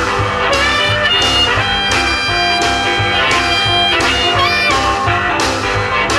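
Electric blues band recording playing: guitar over drums with a steady beat, and a long held lead note through the middle.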